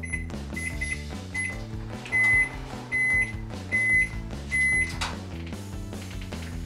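Microwave oven beeping over background music. First come a few short beeps as its keypad buttons are pressed, then four longer, louder beeps just under a second apart. A single click follows near the end.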